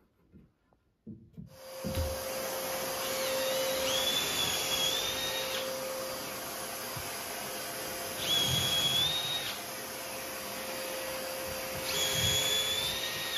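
A vacuum starts about a second and a half in and runs steadily. Over it a cordless drill bores half-inch holes up into the drywall ceiling for toggle bolts, its whine starting and stopping three times.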